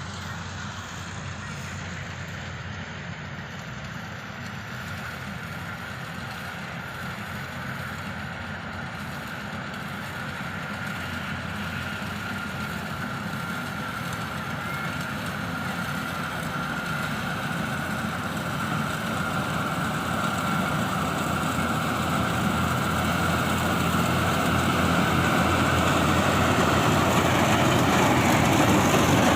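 Yanmar YH850 rice combine harvester running steadily: a low engine hum with a steady high whine over it, growing gradually louder.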